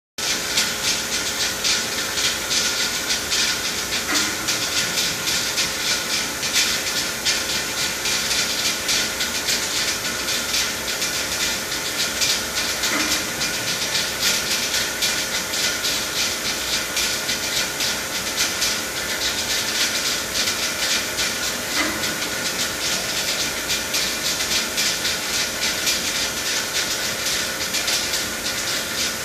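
Alloyd rotary-table packaging machine running: a steady hiss over a constant hum, with a brief sound about every nine seconds as the machine cycles.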